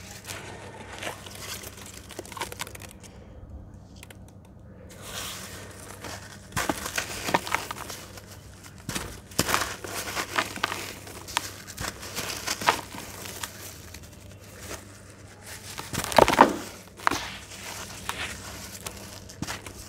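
Hands crumbling a water-soaked gritty red slab: irregular crunching and crackling as chunks break apart and the gritty crumbs and wet mud drop back into the water, loudest toward the end.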